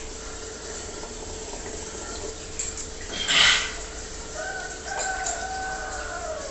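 A rooster crowing once, a held call of about two seconds that drops in pitch at the end, over the steady running water of aquarium filters. Just before the crow comes one short, loud breathy burst.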